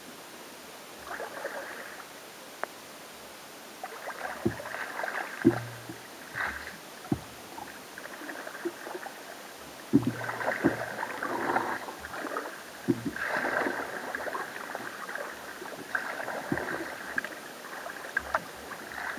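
Sea kayak paddling: water splashes and drips from the paddle blades and sloshes along the hull in uneven bursts every couple of seconds, with several short dull knocks.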